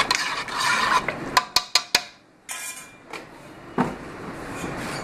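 Stirring and scraping in a steel pot of liquid, with four quick sharp clinks of metal on metal about a second and a half in and a single knock near four seconds.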